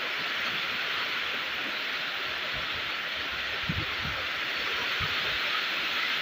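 Steady rain falling, an even hiss, with a few soft low thumps a little past the middle.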